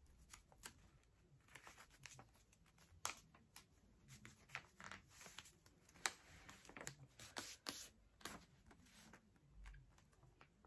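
Faint, scattered crackles and rustles of a sheet of printing paper being folded and aligned by hand.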